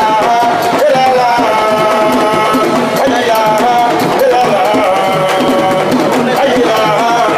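Devotional singing: a single voice holds long, wavering notes over drums and percussion.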